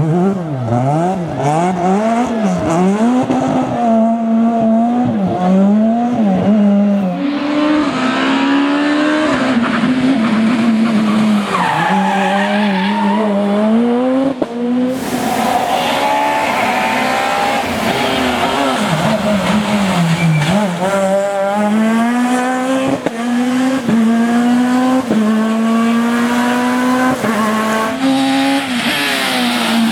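Super 2000 rally cars' high-revving, naturally aspirated 2.0-litre four-cylinder engines at full stage pace. They rev hard through quick upshifts, drop back on the brakes and climb again, over the hiss and scrabble of sliding tyres.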